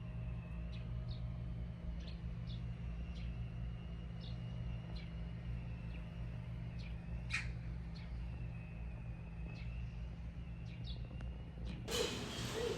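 Bird chirps, short and high, repeating about once a second over a steady low hum. A louder rushing noise starts near the end.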